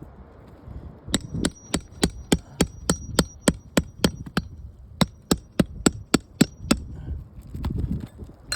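Hammer tapping a steel nail puller to pop a roofing nail out of a shingle: quick metallic taps, about four a second, in two runs with a short pause between.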